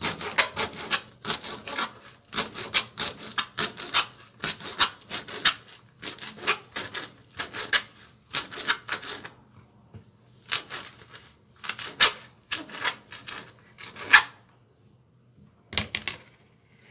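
Kitchen knife chopping celery leaves on a plastic cutting board, in quick repeated chops of about three a second. The chopping pauses briefly about nine seconds in, resumes until about fourteen seconds, and a couple of last chops follow near the end.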